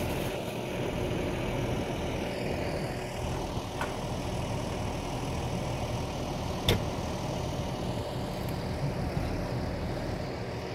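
Farm machinery engine idling steadily, with a single sharp click about six and a half seconds in.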